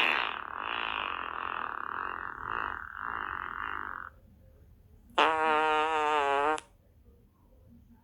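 Fart-like noises: a long raspy one that stops about four seconds in, then, after a pause, a short buzzy tone with a wavering pitch lasting about a second and a half.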